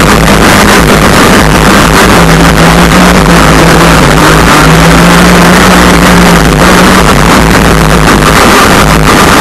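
RC crackerbox boat's gasoline two-stroke engine, heard from onboard, running flat out at high revs. Its pitch holds steady with small rises and dips, over the hiss of water spray and wind, very loud.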